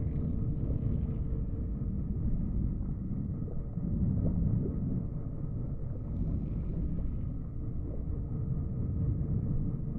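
Steady low underwater machinery rumble with a faint steady hum, swelling slightly about four seconds in.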